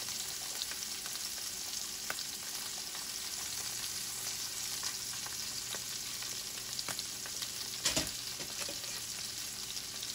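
Salmon fillets and butter sizzling in a stainless steel frying pan: a steady hiss with scattered crackles. One louder knock comes about eight seconds in.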